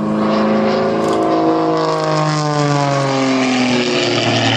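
Engine and propeller of an aerobatic plane passing low and fast. The note holds steady, then falls in pitch over about two seconds as the plane goes by, and settles on a lower note near the end.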